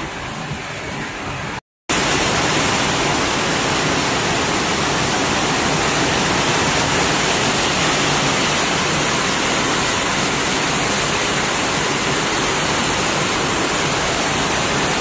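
Heavy rain pouring down in a steady, even hiss. It cuts out briefly about two seconds in, then comes back louder and keeps up without change.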